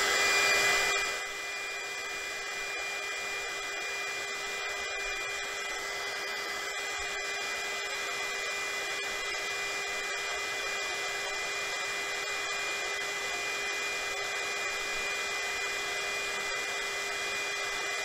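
KAIWEETS KEH01 mini heat gun running on its second, higher-airflow setting: a steady rush of blown air with two steady tones in it, like an ordinary hair dryer. A little louder for about the first second, then even.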